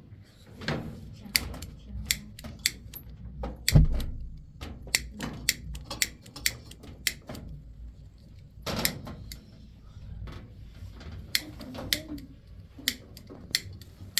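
A run of irregular sharp clicks and knocks of hard objects being handled, with one heavier knock about four seconds in.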